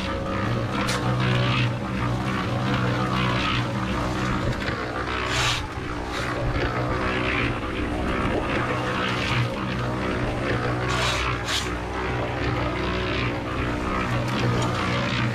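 Concrete mixer running, its drum turning a batch of concrete: a steady motor hum under a continuous grinding rattle of the mix, with a few sharp knocks about five and a half and eleven seconds in.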